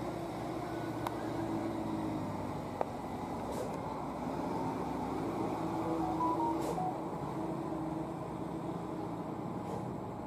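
Road traffic running steadily on a mountain road: engines and tyres of passing vehicles, with a heavy truck approaching. A few brief high tones sound about two-thirds of the way in.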